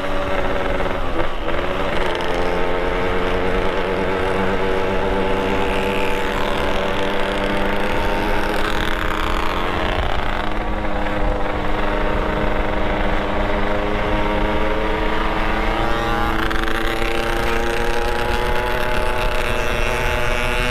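Vehicle engine running steadily under load, its pitch dipping briefly about two seconds in and climbing slowly over the last few seconds.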